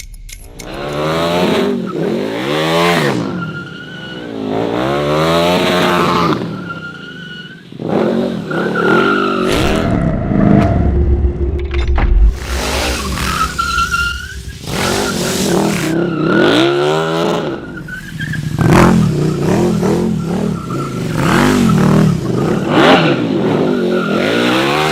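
A KTM 1290 Super Duke R Evo's V-twin engine revving hard, rising and falling again and again, as the rear tyre squeals and skids through drifts.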